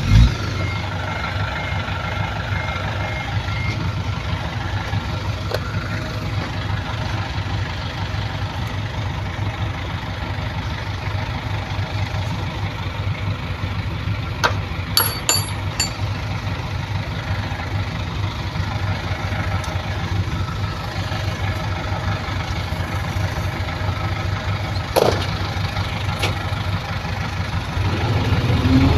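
Heavy earthmoving equipment's diesel engine running steadily with a low rumble. A reversing alarm beeps for the first few seconds, and a few sharp knocks come about halfway through and again near the end.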